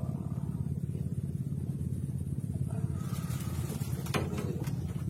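A motor running steadily with a fast, even low throb, likely a fishing boat's engine. About three seconds in, a short burst of hiss with a few sharp clicks sounds over it.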